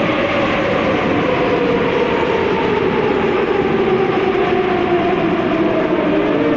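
Athens metro train pulling in past the platform: a steady rumble of wheels on rail, with a motor whine that falls slowly in pitch as the train slows.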